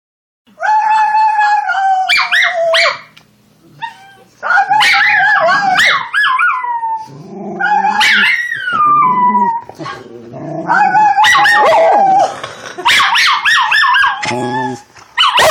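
Schnauzer puppy howling, "singing", in repeated bouts of long wavering howls broken by short yips, with a person's howling voice joining in.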